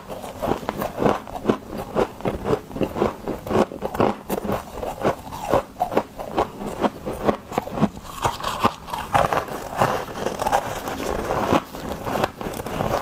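Chunks of ice being bitten and chewed close to the microphone: a steady run of crisp crunches, several a second, thickening into denser grinding crunches a little past the middle.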